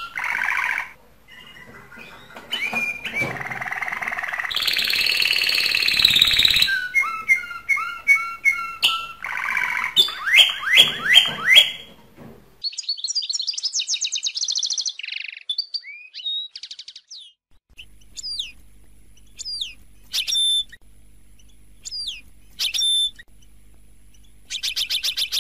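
Domestic canary singing its full courtship song: fast trills, rolls and a harsh, rasping stretch, delivered loud and continuously. About halfway through the song stops, and short falling chirps follow at intervals over a faint steady hum.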